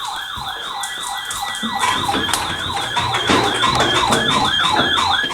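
Electronic siren in a fast yelp, its pitch sweeping up and down about three times a second, with a higher wavering tone riding over it. It cuts off suddenly at the end.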